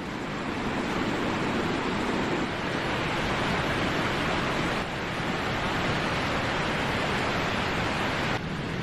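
Steady rushing noise, like running water, heavy rain or wind, with an abrupt change about 8 seconds in.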